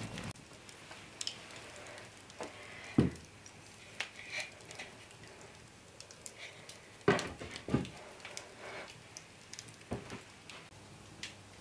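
Wooden-framed hourglass handled and set down on a wooden mantel shelf: sparse light clicks and knocks, with two louder wooden thumps about seven seconds in as it is turned and placed.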